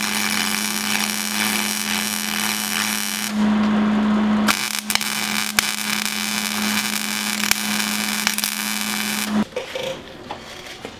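Wire-feed (MIG) welder laying a bead of angle-iron reinforcement onto a steel suspension arm: a steady crackling arc with a faint hum underneath. The crackle thins for about a second about three seconds in, resumes with sharp pops, and stops about a second and a half before the end.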